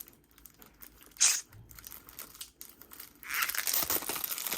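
Album packaging crinkling and rustling as it is handled and pulled apart: one brief rustle about a second in, then steady crinkling from about three seconds in.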